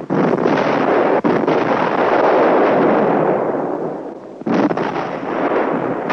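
Anti-tank gun fire and shell explosions, heard on a thin-sounding 1940s newsreel soundtrack. A sharp blast at the start rolls into a long rumble that fades about four seconds in, and another blast follows about half a second later.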